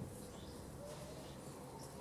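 Faint birds chirping in the background, a few short high calls scattered through, over a quiet outdoor hush. A soft low knock right at the start.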